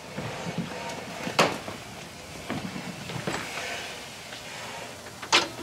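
Scattered knocks and clatter over softer handling noise, with a louder bang about a second and a half in and another near the end.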